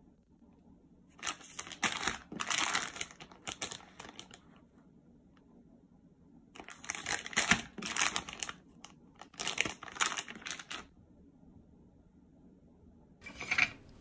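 Plastic food packaging (a green curry kit pouch) crinkling as it is handled and turned over. The crinkling comes in stretches of a second or more: one a little after the start, two more in the middle, and a short burst near the end.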